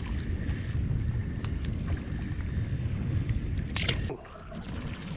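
Wind rumbling on the microphone, steady and low. About four seconds in comes a short splash as the small black sea bass is tossed back into the water, and the wind noise drops away right after.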